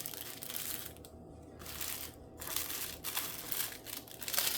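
Small plastic bags of diamond-painting drills being handled and sorted, crinkling in uneven bursts with two short pauses.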